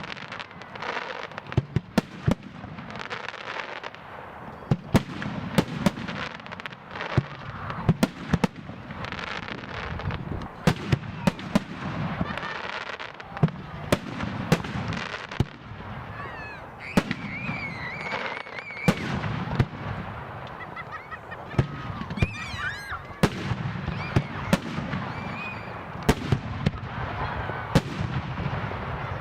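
Aerial firework shells bursting in quick succession: a steady stream of sharp bangs and reports over a rumbling, crackling background. High wavering whistles rise above it about halfway through.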